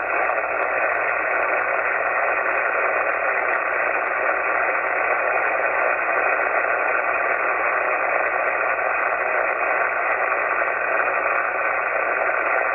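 Steady static hiss from an HF radio receiver tuned to the 160-metre band, heard through the radio's narrow voice passband. It is the band's noise floor, still strong with the station running on battery and every power panel in the compound shut off.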